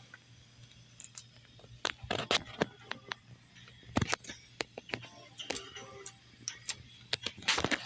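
Scattered, irregular sharp clicks and clacks over a faint steady low hum, with a louder clatter of clicks near the end.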